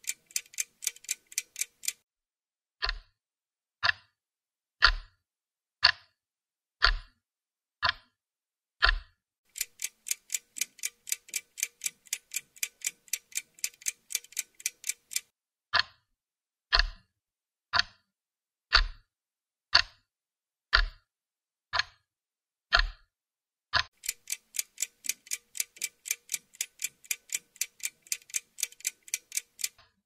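Ticking clock, most likely a sound effect laid over a wait. Stretches of fast, light ticks, about four a second, alternate with slower, louder ticks once a second that carry a low thud, switching back and forth abruptly every six seconds or so.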